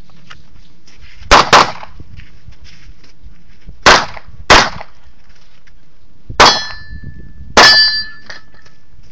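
Six handgun shots: a quick pair, two more about half a second apart, then two single shots, the last two each followed by a metallic ring that fits steel targets being struck.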